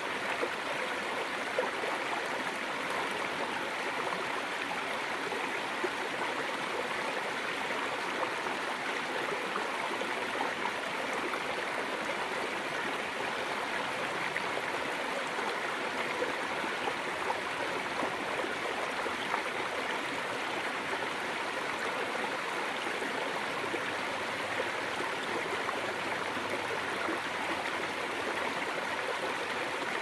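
Rocky forest stream flowing over small cascades between boulders: a steady, even rush and splash of water.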